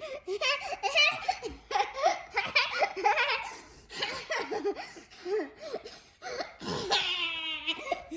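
High-pitched giggling and laughing in repeated short bursts, with a longer falling laugh near the end.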